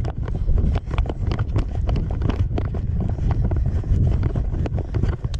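Wind rumbling on the microphone, with many irregular clicks and knocks throughout.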